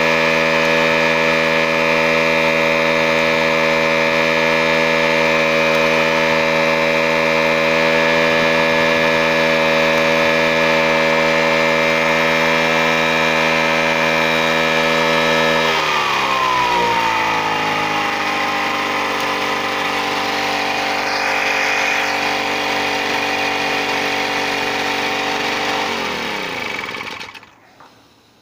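DKW GG 400 generator set's small two-stroke engine running steadily while powering a lamp. About halfway through it slows to a lower, steady speed, then winds down and stops near the end.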